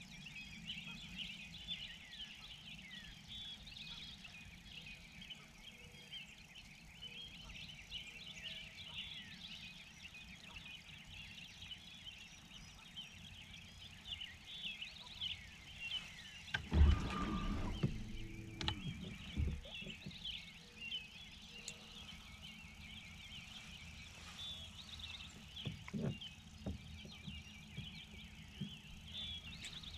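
A chorus of small songbirds chirping and singing continuously from the wooded shore. About halfway through, a brief low thump and rumble on the boat is the loudest sound, followed by a couple of fainter knocks.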